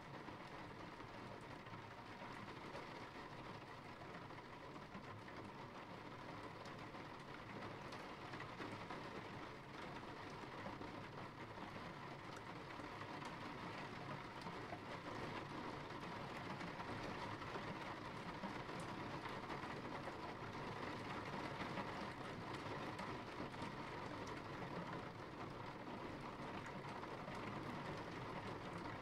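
Steady rain falling, an even hiss that grows slightly louder about a third of the way in.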